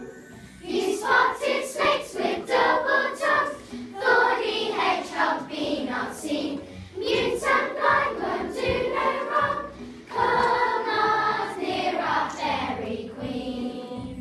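A group of children singing together in sung phrases of about three seconds each, with brief breaks between them.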